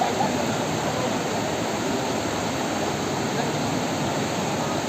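Fast-flowing river water rushing steadily, an even wash of white-water noise.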